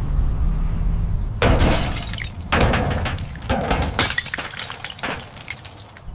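Glass shattering amid a dense run of crashing impacts. It starts about a second and a half in, over a low rumble, and thins out near the end.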